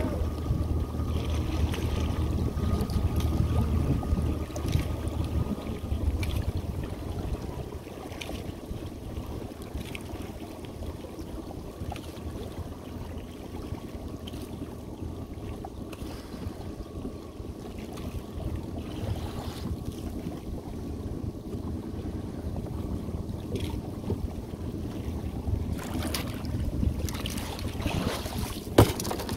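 A skiff's motor idling low and steady as the boat creeps along a crab trotline, with water washing at the hull and scattered light clicks and knocks. One sharp knock comes near the end.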